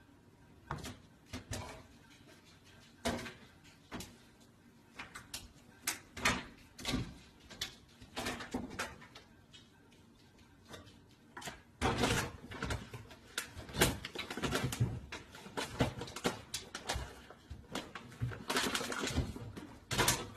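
A cat scrabbling and knocking against wooden kitchen cabinet doors and a microwave while it climbs: irregular knocks and scrapes that get busier about halfway through, with rustling as it pulls at a plastic bag near the end.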